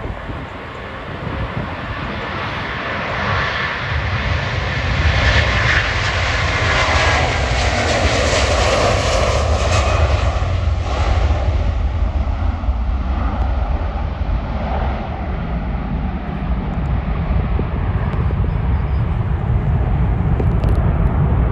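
Airbus A330 twin-engine jet airliner at takeoff thrust. The engine roar builds over the first few seconds and is loudest and hissiest a few seconds in, as the aircraft passes. It then settles into a steady deep rumble as the airliner climbs away.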